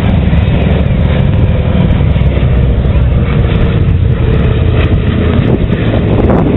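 Loud, steady aircraft engine noise, with faint tones that sink slightly in pitch as it goes.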